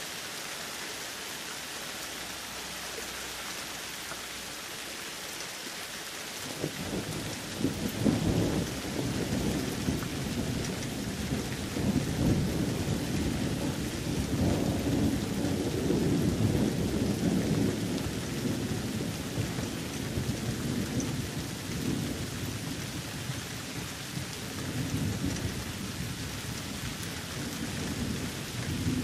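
Steady rain hissing, with a long roll of thunder that starts about six seconds in, rumbles and swells for well over ten seconds, then dies away, with a smaller rumble near the end.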